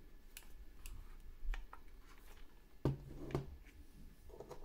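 Scattered plastic clicks and knocks as hands handle a toy remote-control car's chassis and battery compartment. The loudest click comes about three seconds in and is followed by a brief low buzz.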